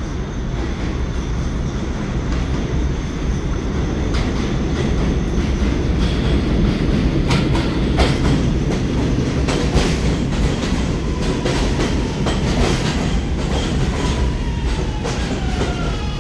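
R211 subway train running on the track: a steady heavy rumble, with sharp clicks of the wheels over rail joints from about four seconds in, and a thin whine sliding in pitch near the end.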